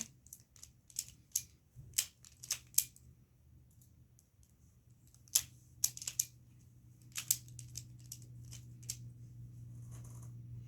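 Plastic Rubik's cube being turned by hand: sharp clicks of the layers snapping round, in irregular clusters.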